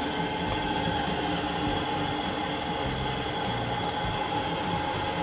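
Nichiyaku KP78 sugar-coating pan machine running empty: its electric motor and drive turn the metal pan with a steady mechanical hum and a few constant whining tones.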